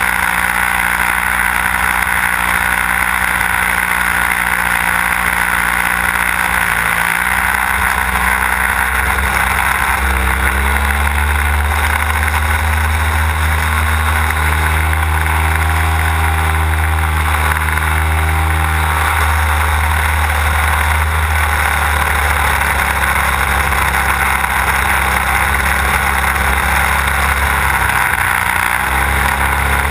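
Desert Aircraft DA-150 twin-cylinder two-stroke gas engine and propeller of a large RC aerobatic plane running in flight, heard from on board the airframe. The engine pitch rises about a third of the way through, holds, falls back a little after the middle, and dips briefly near the end.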